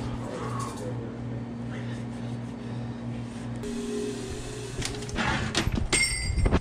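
Coffee-shop room tone with a steady low hum, then several knocks and clicks near the end as the shop's door is pushed open and he walks through.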